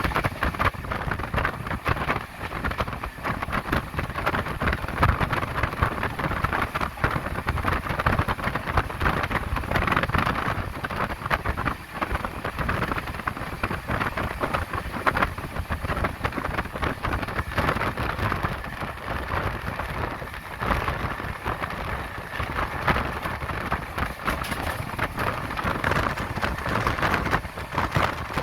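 Steady rushing and rattling noise of an express passenger train running at speed, heard from on board: wheels on the rails and the coach shaking, with a dense crackle of small clicks throughout.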